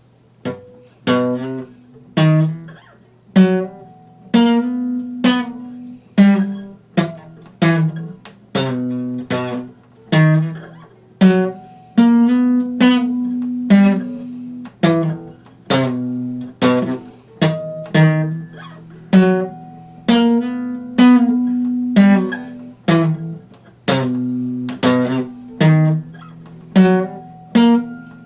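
Epiphone acoustic guitar being played, chords struck in a steady rhythm of roughly three strokes every two seconds, beginning a moment in.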